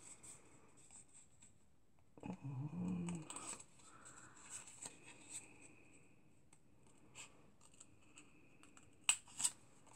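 Small scissors snipping through cardstock in short, separate cuts, with two louder snips near the end.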